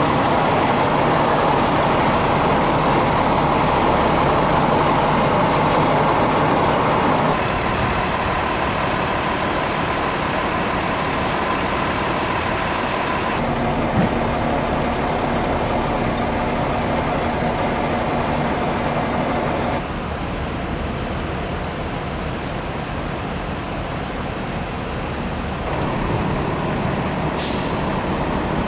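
Diesel engines of FDNY fire apparatus running steadily, a continuous rumble with a steady hum, and a short hiss near the end.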